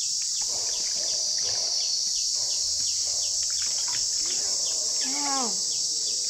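Steady, high-pitched insect drone. About five seconds in, a short voice-like sound rises and falls in pitch.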